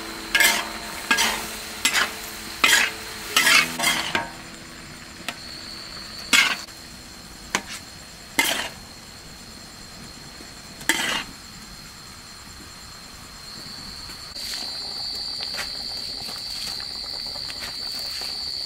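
A metal utensil clanks and scrapes against a wok as spinach is stir-fried, with strokes about once every 0.7 s for the first four seconds and then a few single strikes, over a steady sizzle of frying. The sizzling hiss gets louder about three-quarters of the way through.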